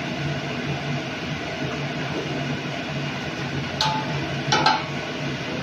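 A steel lid is set down over an aluminium kadai of simmering curry, clinking against the rim twice with a brief metallic ring, about four seconds in and again just under a second later. A steady hum and hiss runs underneath.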